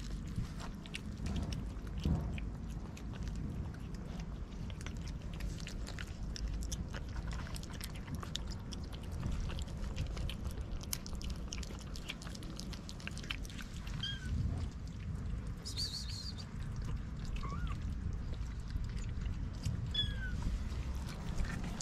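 Cats eating soft wet cat food from a plate: many small chewing and smacking clicks. In the second half a kitten gives a few brief, high mews.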